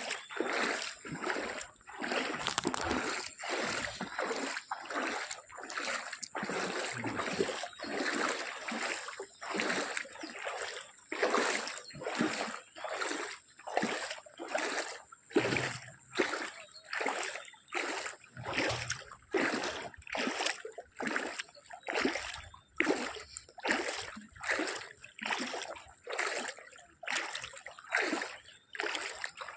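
Rhythmic splashing in floodwater, a little more than one splash a second, evenly paced.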